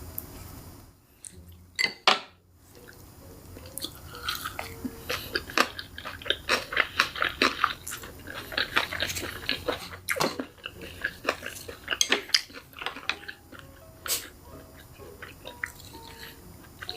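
Close-miked chewing and biting of crunchy food, ASMR-style: two loud bites about two seconds in, then several seconds of dense crackly crunching that thins out near the end.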